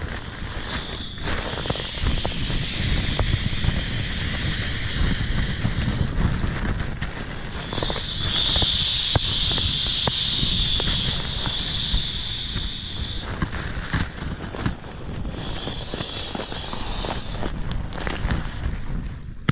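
Inflatable sleeping mat being pressed and rolled flat to deflate: crinkly nylon rustling and crackling throughout, with a steady hiss of air escaping from the valve for several seconds in the middle and briefly again near the end.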